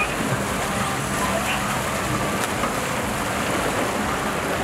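Sportfishing boat's engines running steadily under a wash of churning wake water behind the stern.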